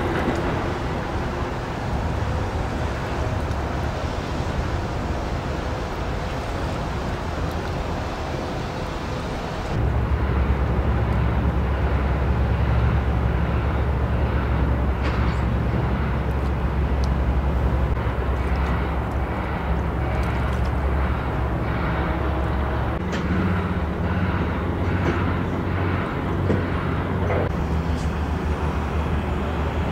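Steady outdoor din of engines and traffic around a demolition site. About ten seconds in, a deeper, louder engine drone takes over, with scattered faint knocks in the second half.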